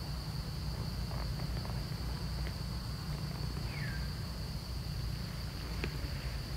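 A steady high-pitched drone of insects over a low rumble, with a few faint ticks and one short falling chirp just before the middle.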